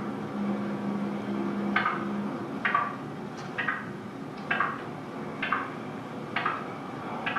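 Wooden blocks being clapped together, about eight sharp claps at roughly one per second, each with a short ringing tail. A low steady hum sounds under them for the first two seconds.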